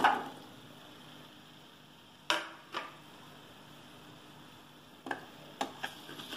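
Cut okra pieces tipped off a plate into a steel kadai at the start, then a steel spoon knocking and scraping against the kadai as the okra is stirred: two knocks about two and a half seconds in, and several more after five seconds.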